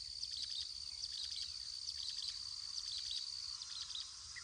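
Small birds chirping over a steady, high-pitched insect drone, with a low background rumble.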